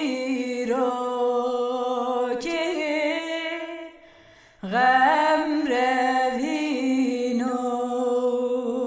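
Unaccompanied solo singing: one voice holding long, wavering notes that slide between pitches, with a short pause about halfway through.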